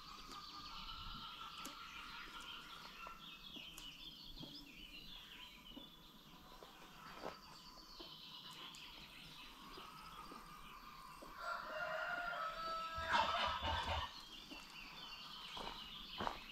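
A flock of free-range chickens calling and clucking, with a rooster crowing. The loudest, longest calls come about twelve seconds in.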